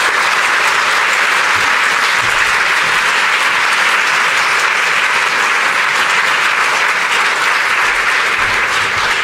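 Audience applauding steadily in a hall, fading away near the end.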